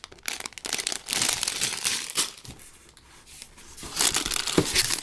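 Plastic bags of Lego parts crinkling as they are handled, in two bouts with a lull of about a second and a half in the middle.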